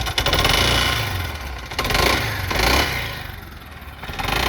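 Suzuki Burgman 400 scooter's single-cylinder engine revved up and down several times from idle, with a knock that the owner is pretty sure comes from a worn crank pin bearing.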